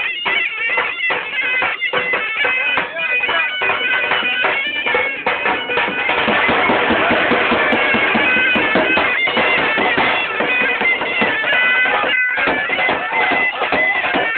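Loud music carried by a piercing, droning reed-pipe sound like bagpipes, holding steady high notes over a dense, rapid clatter.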